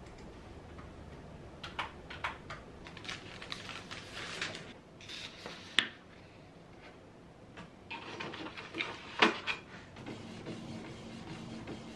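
Scattered clicks and taps, then a denser run of mechanical clicks as a Canon Pixma TS5020 inkjet printer works and feeds out a printed sticker sheet, with a steady printer hum from near the end.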